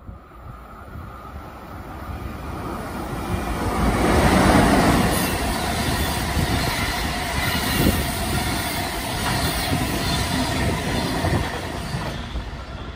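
SBB passenger train of intercity coaches, pushed by an electric locomotive at the rear, passing through the station at speed. The sound swells as it approaches and peaks about four seconds in, stays a steady rolling rush of wheels on rail while the coaches go by, then eases off near the end as the train moves away.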